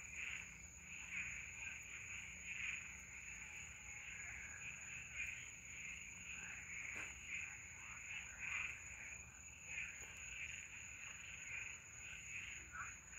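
Chorus of many frogs calling over one another: a dense, continuous mass of short, repeated calls with a steady high-pitched whine behind them.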